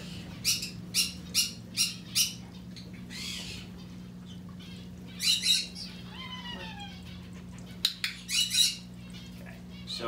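Parrot squawking: a quick run of short, shrill squawks in the first couple of seconds, more squawks about five seconds in and again near eight seconds, and a falling whistled call in between. A steady low hum runs underneath.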